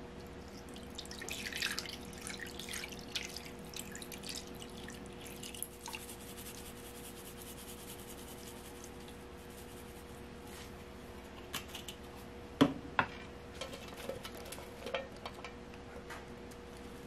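Water poured into a frying pan of tofu blocks, crackling and spattering over the first few seconds, then settling to a quiet simmer with scattered light clicks and one sharp knock about twelve seconds in.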